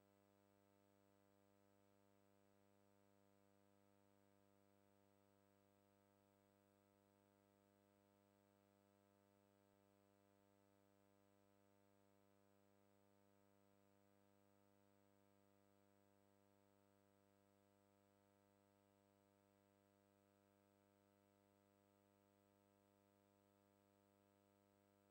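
Near silence: only a faint, steady hum from a silent home-movie transfer.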